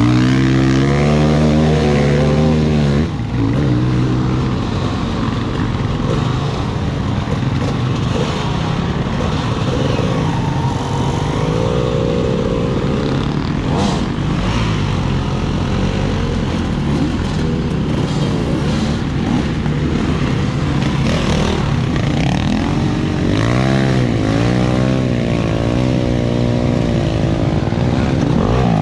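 Off-road enduro motorcycle engine running hard, its pitch rising and falling again and again as the throttle is opened and closed, with a short dip about three seconds in.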